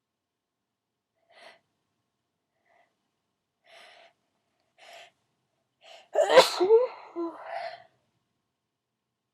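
A person's few short, catching in-breaths building up, then one loud, wet sneeze about six seconds in, trailing off over about two seconds.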